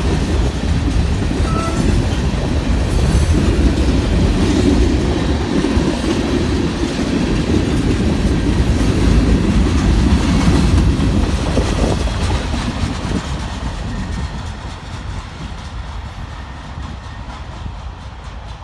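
Union Pacific mixed freight cars (tank cars and covered hoppers) rolling past, their wheels making a steady loud rumble on the rails. From about two-thirds of the way through it fades as the last car passes and draws away.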